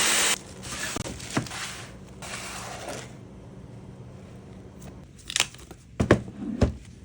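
High-speed hair dryer blowing with a loud hiss that cuts off just after the start, followed by two weaker bursts of airflow over the next couple of seconds. A few sharp knocks and clicks come near the end.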